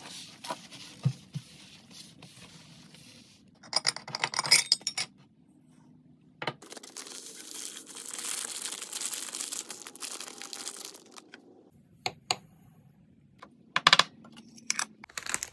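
A plastic bag crinkling as small dried seeds are poured from it into a small glass jar, with a longer stretch of rustling pouring in the middle. Scattered light clinks and taps of the glass jar on the countertop.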